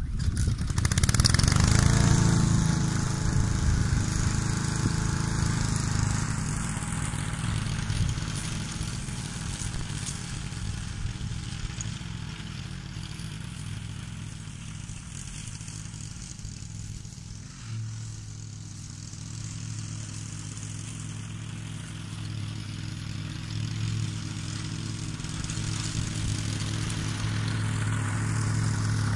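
Honda HRS536 walk-behind mower's four-stroke engine running steadily while cutting grass, its pitch climbing briefly about two seconds in. It is loudest at first, fades as the mower moves away across the slope, and grows louder again near the end as it comes back.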